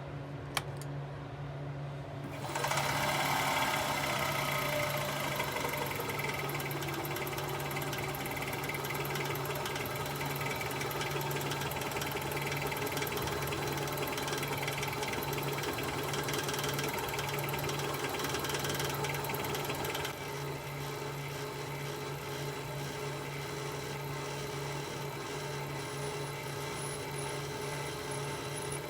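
An electric machine tool running, then cutting metal bar stock: a dense, rapid chatter starts about two and a half seconds in over the motor's steady hum. It drops somewhat in level around twenty seconds in.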